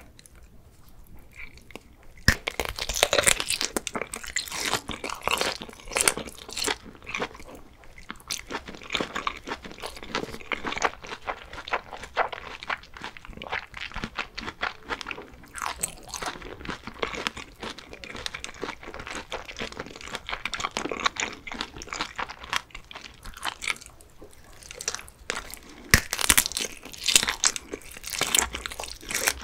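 Close-miked biting and chewing of a fried sausage dipped in cheese sauce, with crunching of the crisp skin. It starts with a sharp bite about two seconds in, chewing runs on steadily, and there is another loud bite near the end.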